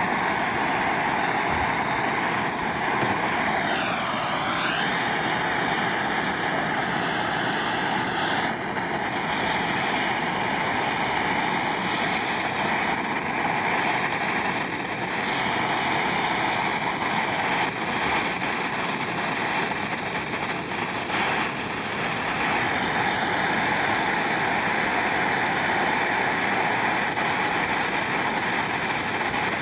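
Handheld gas torch burning with a steady hiss, its flame melting gold powder into a bead.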